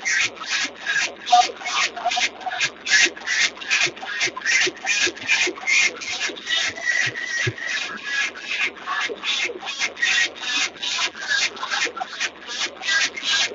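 Steady rhythmic rasping or scraping strokes, about three a second, evenly spaced and unbroken.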